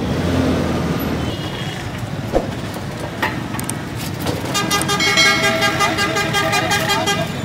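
Busy street traffic with engines running. A few sharp knocks come in the first half. From about four and a half seconds a vehicle horn sounds, held steady for about three seconds.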